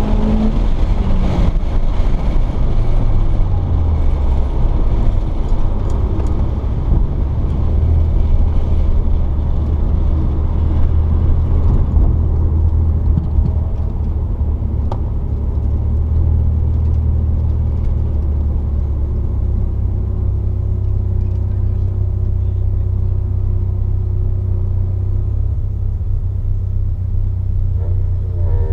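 Mitsubishi Lancer Evolution VIII's turbocharged four-cylinder engine. Its revs drop in the first few seconds, then it runs steadily at low, nearly constant revs for most of the time.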